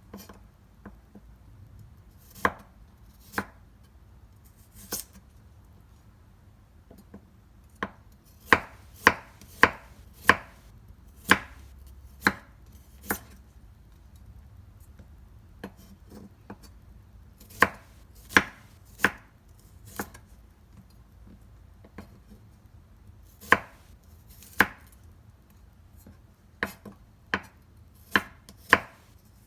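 Kitchen knife chopping food on a cutting board in single sharp strokes, about half a second to a second apart, in short runs broken by pauses of a few seconds.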